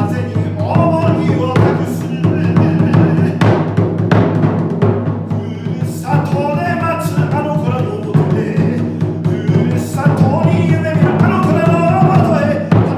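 Music: Japanese folk-style drumming, with drum strikes over a steady low drone and a wavering melody line on top.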